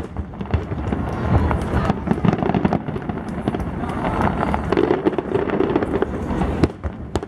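Aerial firework shells bursting: a rapid, irregular run of bangs and crackles over a continuous rumble.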